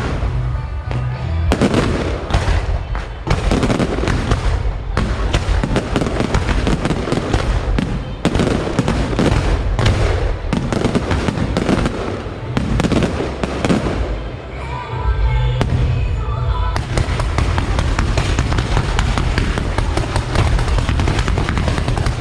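A dense barrage of fireworks going off without a break: rapid crackling mixed with heavier bangs, thinning briefly about two-thirds of the way through before building again.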